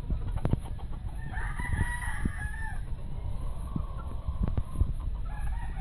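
Gamefowl rooster crowing: one crow a little over a second long starting about a second in, then a shorter, fainter crow in the middle. A low rumble with scattered knocks runs underneath.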